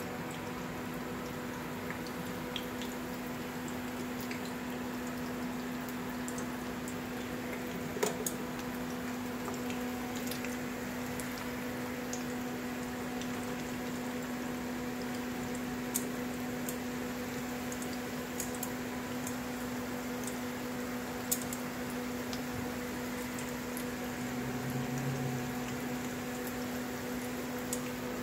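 Potato pieces frying in hot oil in a nonstick pan: a steady sizzle with occasional sharp pops. A steady low hum runs underneath.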